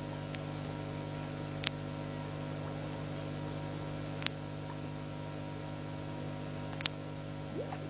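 Night ambience by a pond: faint, short high insect chirps come and go over a steady low electrical hum. A sharp click sounds about every two and a half seconds, and a few brief rising calls come near the end.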